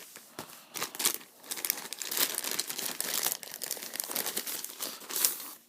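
Packaging being opened by hand: irregular crinkling and tearing as the wrapping around the box is pulled open.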